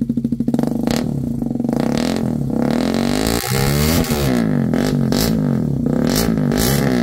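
Hero Karizma XMR 210's single-cylinder engine running through short Akrapovic mini slip-on silencers held by hand onto its dual bend pipes. It is revved up and down several times, the engine note rising and falling with each blip.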